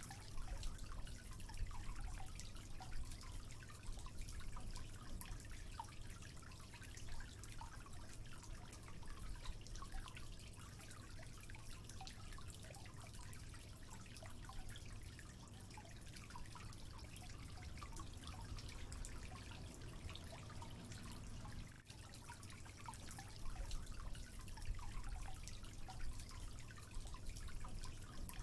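Water dripping from a leak: many small drops ticking and plinking at an uneven pace, over a low steady rumble.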